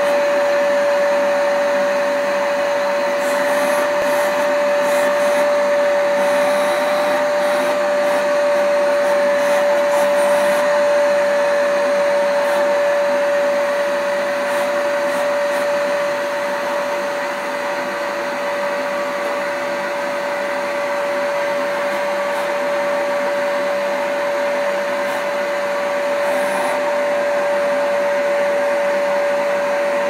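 Vacuum cleaner running steadily, its hose nozzle drawn over a man's neck, shoulders and head to suck up freshly cut hair. It is a constant whine over the rush of air.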